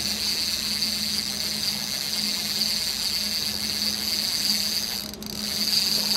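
Fishing reel's drag buzzing steadily as a hooked salmon takes line, over the low steady hum of the boat's engine. It dips briefly about five seconds in.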